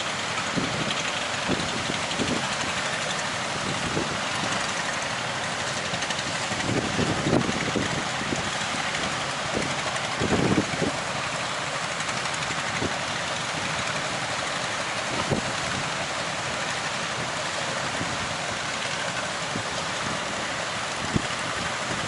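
Steady rushing noise of wind and sea surf, with gusts buffeting the microphone in irregular low thumps.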